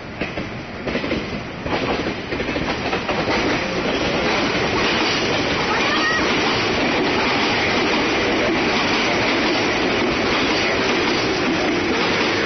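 Train passing close by over a level crossing. Wheels click over rail joints as it arrives, then the passing cars settle into a loud, steady rumble.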